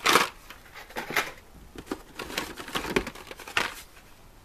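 Carded Hot Wheels blister packs being handled and shuffled against each other in a plastic tub: irregular clacks and rustles of plastic blisters and card backs, loudest right at the start.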